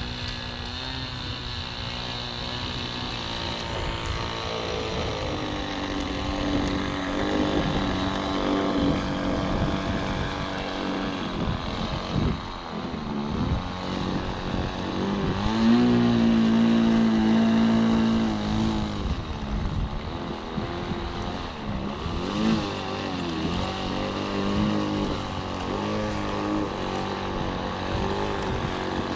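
Nitro (glow-fuel) engine of a Nexstar Select RC trainer plane running on the ground, its pitch rising and falling as the throttle is opened and closed. The loudest, highest-pitched burst of throttle lasts about three seconds, a little past the middle.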